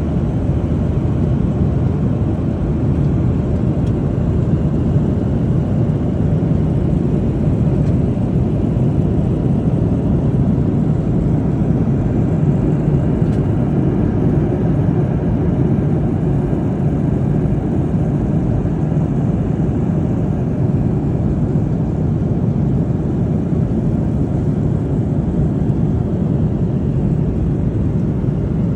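Steady, low rumble of an airliner's cabin in cruise flight: jet engines and rushing airflow heard from inside the passenger cabin. It holds constant with no change in pitch.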